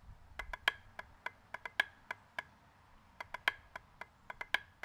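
Wooden drumsticks tapping a drum practice pad, playing a mill rudiment (right-right-left-right-left-left-right-left) without flams. Quick sharp taps of uneven loudness come in two short phrases with a brief pause between them.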